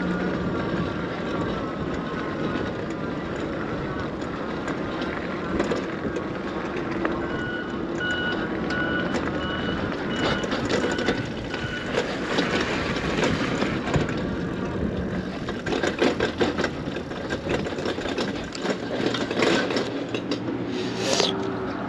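Vehicle noise with a reversing alarm sounding a run of evenly spaced high beeps for a few seconds near the middle, among scattered knocks.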